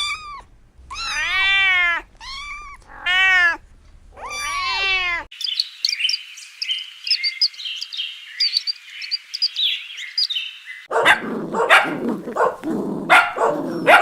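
A cat meowing four times, each a drawn-out call that rises and falls in pitch. Then about six seconds of high, thin chirping, and near the end a dog barking in quick short barks.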